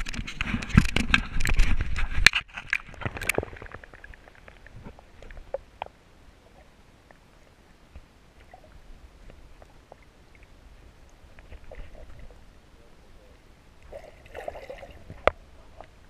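River water splashing and sloshing loudly for the first two to three seconds as an underwater camera is plunged beneath the surface, then muffled underwater noise with scattered faint clicks and knocks. A short stretch of sloshing comes back near the end, with one sharp click just before the end.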